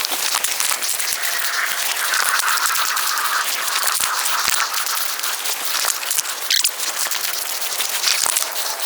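Steady rustling and crackling with many small clicks and rattles: potting mix of ground hardwood mulch and compost, and plastic 1-gallon trade pots, being handled as young fruit trees are potted up.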